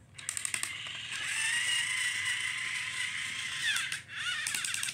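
Battery-powered TrackMaster Snow Plow Thomas toy engine's small electric motor and gears running with a steady high whine, starting with a few clicks. The whine dips and wavers about four seconds in.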